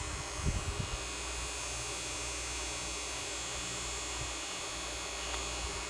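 Steady hum and hiss of background room noise, with a few soft low handling bumps in the first second and a faint click near the end, as fingers and pointed tweezers work at the edge of an action camera's lens cover.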